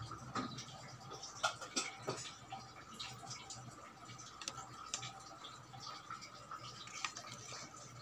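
Handling noise from an electric kettle's plastic power-base connector and its cord wires: irregular light clicks and taps over a faint steady hum.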